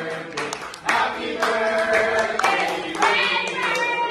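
A small group of people singing together, with steady hand clapping along to the song.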